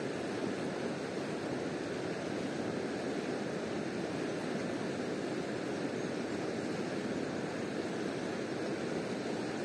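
A river flowing past, a steady rushing of water.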